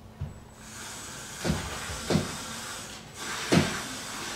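Three dull knocks from hand work on wooden window trim, the last the loudest, over a steady low hiss.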